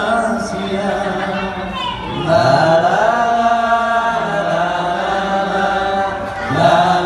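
A man singing a slow religious dangdut song into a microphone, drawing out long held, wavering notes between lyric lines.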